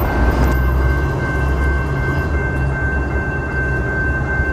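Railroad grade-crossing warning bell ringing as a steady high tone, over the low rumble of an approaching diesel train.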